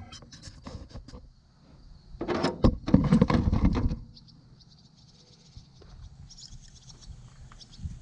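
Hand work on a machine: a few light knocks, then about two seconds of clattering and scraping, like tools or parts being handled.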